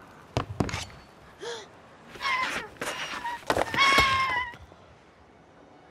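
A few knocks and footfalls in the first second, then a wounded baby dragon's high-pitched squealing cries: a short one about two seconds in and a longer, held one about four seconds in.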